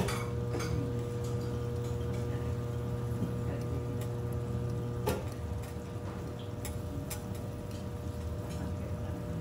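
Garlic slices frying in oil on a steel teppanyaki griddle, with a faint sizzle over a steady low hum. A few sharp clicks of a metal spatula and fork against the griddle, the loudest right at the start and about five seconds in.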